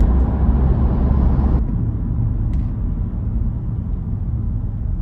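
Car cabin noise while driving: a steady low engine and tyre rumble from a Kia, which drops abruptly about a second and a half in to a quieter, lower rumble as the car goes from road speed to slow traffic.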